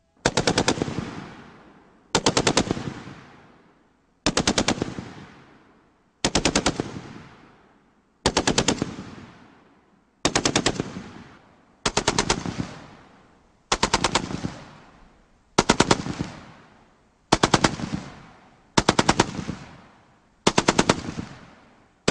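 Belt-fed heavy machine gun firing about a dozen short bursts of several rounds each, roughly one burst every two seconds. Each burst trails off in a long echo.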